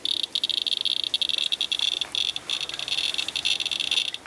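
Radalert Inspector Geiger counter chirping rapidly and irregularly, its high-pitched count clicks crowding into a near-continuous chatter that starts suddenly as it is held over a wipe sample from rain-soaked sheet metal. This is a high count rate, which the uploader puts at about 91 times background.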